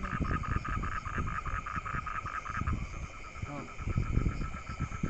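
A night chorus of frogs in a flooded rice paddy, a fast, even pulsing trill that keeps going, with irregular low rustles and knocks from movement close by.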